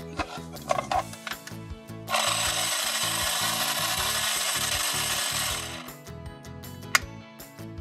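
Toy stand mixer's small electric motor whirring as its plastic beater spins, for about three and a half seconds starting two seconds in, over background music.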